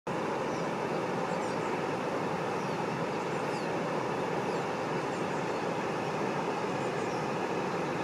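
Waterfall rushing in a steady, unbroken roar of falling water, with faint short high chirps scattered through it.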